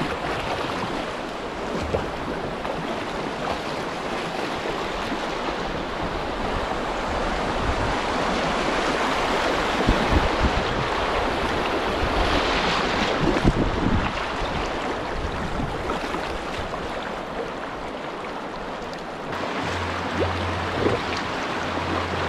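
Rushing whitewater of a shallow river rapid around a kayak, with paddle strokes splashing and wind buffeting the microphone; the water noise swells about halfway through as the boat runs the faster water.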